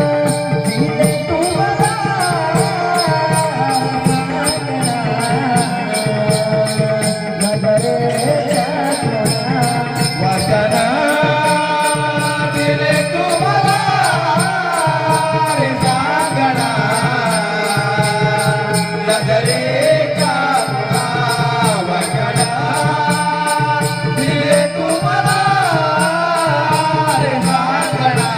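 A singer performing a Marathi song, the voice gliding through ornamented, wavering melodic lines over instrumental accompaniment with a steady beat.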